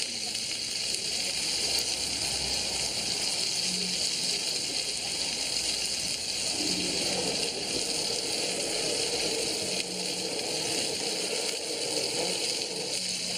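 Pork-belly-wrapped roll sizzling on a hot flat-top griddle, a steady hiss.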